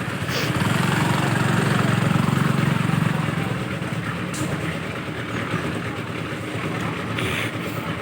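An engine running with a steady low rumble, louder for the first three seconds or so, then a little quieter.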